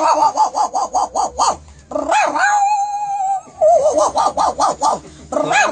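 A man imitating a dog with his voice: quick runs of short pitched calls at about five a second, one long call held on a steady pitch in the middle, then more quick calls.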